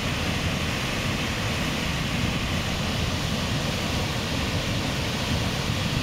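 Makalia Falls, swollen with rainy-season water, pouring down a rock face into its pool: a steady, unbroken rushing of falling water.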